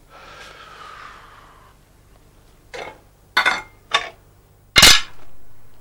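Paint tins and jars being handled on a studio work table: a soft rustle at first, then three short clinks and a loud bang with a ringing tail near the end.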